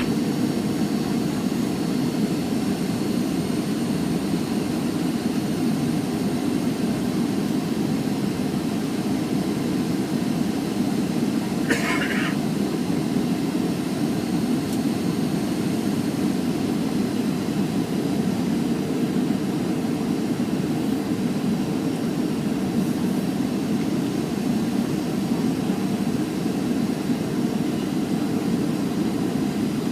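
Steady cabin rumble of a Boeing 737 taxiing on idle engines. A brief higher-pitched blip comes about twelve seconds in.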